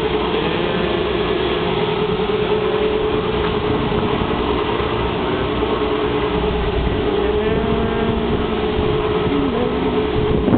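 Strong wind ahead of a typhoon buffeting the microphone on an open rooftop, a steady low rushing, with a constant droning tone and faint wavering whistles over it.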